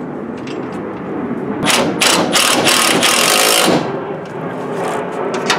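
Cordless impact driver tightening an Allen-head cap screw: the motor whirs, then hammers in a loud rapid rattle for about two seconds in the middle as the screw snugs down, then whirs more quietly again.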